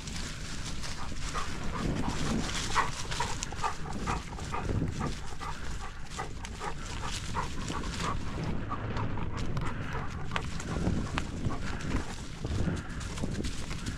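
A dog close to the microphone making a quick run of short, evenly spaced sounds, about three a second, for several seconds, over a steady low rumble.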